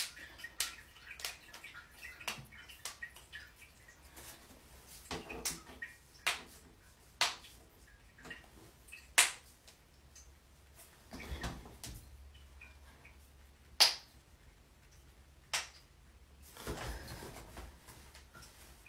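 Joints cracking: a series of sharp pops at irregular intervals, several loud and many faint, with soft rustling of movement in between.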